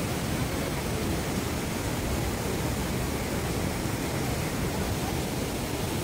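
Steady, even rush of water from the Reichenbach Falls, heard close up.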